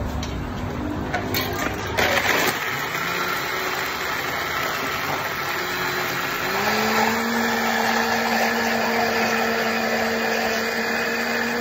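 Countertop blender motor running, blending a Coca-Cola slushie, with a brief clatter about two seconds in. About six seconds in, the motor steps up to a higher, steady whine.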